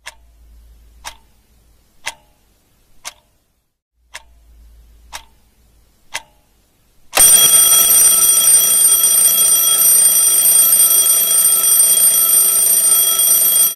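A clock ticking once a second, about seven ticks, then an alarm clock starts ringing loudly about seven seconds in and rings steadily.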